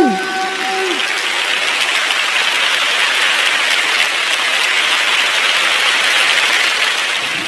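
The last held note of a sung call to prayer slides down and stops in the first second. Audience and judges then applaud, steadily, and the applause fades near the end.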